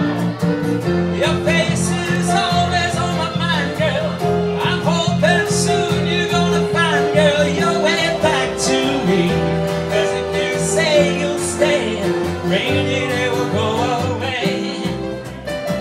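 Live acoustic guitar and electric keyboard playing a song, with a man singing over long held keyboard notes.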